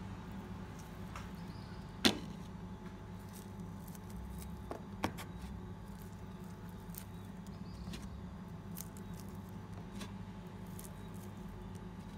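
Plastic tongs clicking and tapping against a plastic container as a salad is tossed, with a sharp knock about two seconds in and another about five seconds in, over a steady low hum.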